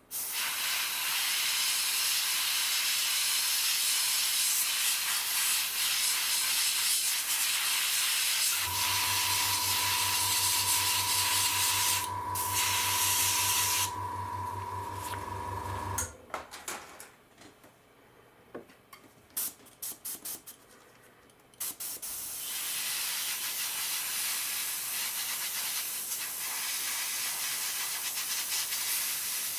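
Airbrush spraying paint with a steady hiss. About a third of the way in, a compressor motor hums for several seconds. The hiss stops, a few small clicks follow in the quieter gap, and the spraying hiss starts again near the end.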